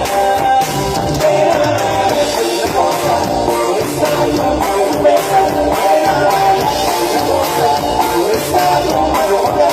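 Live band playing during a sound check: electric guitar and drum kit, with a voice singing over the music.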